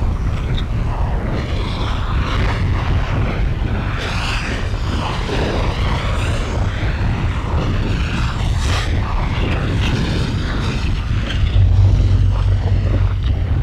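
Dense, steady low rumble with a rushing, churning noise above it, a sound-design drone from a film soundtrack; the bass swells a little near the end.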